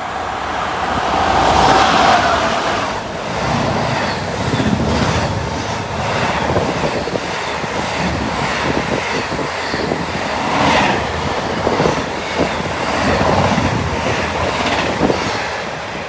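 Freight train passing close by. The pair of Class 90 electric locomotives goes past loudest about two seconds in, followed by a long run of container wagons: a steady rumble of wheels with repeated clicks, dropping away near the end as the tail passes.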